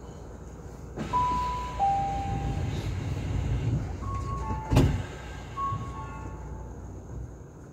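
Commuter train interior with a steady low rumble that swells about a second in. Over it, a descending two-note electronic chime sounds, then two more short two-note tones, with one sharp knock just before the middle.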